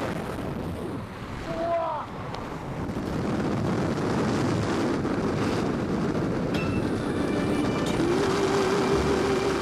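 Freefall wind rushing over the camera's microphone on a tandem skydive: a dense, steady noise. A brief pitched glide cuts through about two seconds in.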